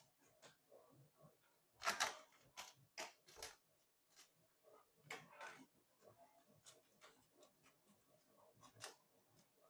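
Scattered light plastic clicks and knocks as 3D-printed desiccant boxes are handled and pressed into a 3D printer's AMS filament unit, the loudest cluster about two seconds in.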